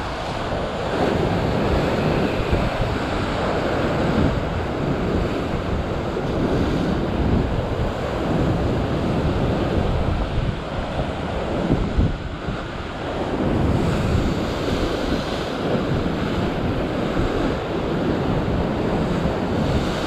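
Rough surf breaking and washing over a rock ledge, a steady rush of churning white water, with wind buffeting the microphone.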